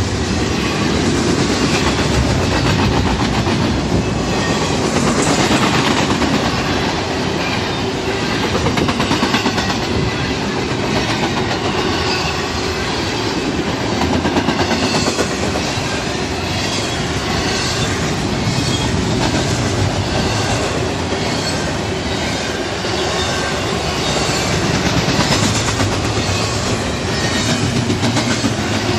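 Double-stack intermodal freight train's well cars rolling past: a steady rumble of steel wheels on rail, with rhythmic clickety-clack over the rail joints that swells and fades as the cars go by.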